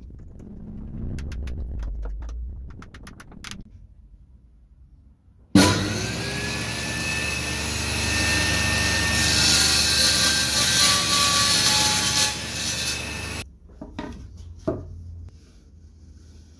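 Homemade table saw switched on with its blade running free: the motor starts suddenly with a rising whine, runs loud and steady for about eight seconds, then cuts off suddenly. Before it come faint clicks of a screwdriver fastening the throat plate; after it, a few knocks.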